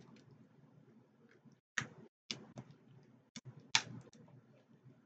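Sharp clicks and cracks of shellfish shells being broken and picked apart by hand, about six in a few seconds, with quieter handling noise between.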